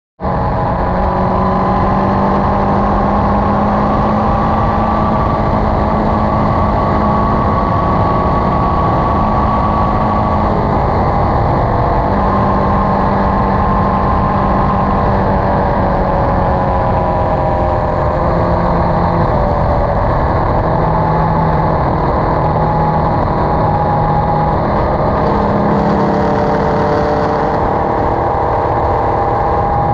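Sport motorcycle cruising at highway speed: a steady engine drone under wind and road rush, its pitch drifting slightly as the speed holds.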